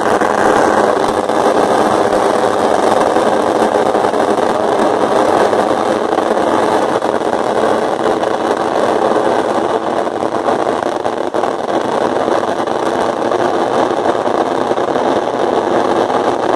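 A long string of fireworks hanging from a festival hot-air balloon burning off in a steady, dense crackle that merges into a continuous rumble.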